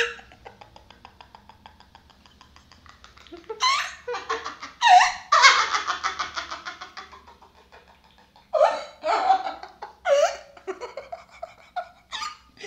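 A man and a woman laughing hard together. For the first few seconds it is quiet, rapid breathy pulses; from about four seconds in come loud bursts of laughter, the loudest around five to seven seconds, then smaller fits.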